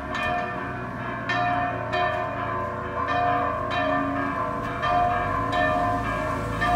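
Church bells ringing a peal, several bells struck over and over, a stroke about every half second or so, each ringing on into the next.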